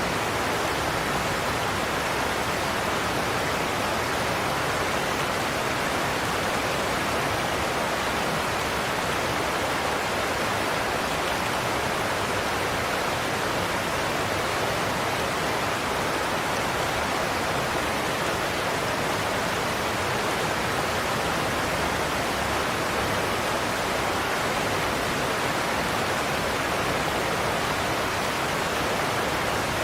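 Godafoss waterfall: a steady, unbroken rush of falling water with no change in level.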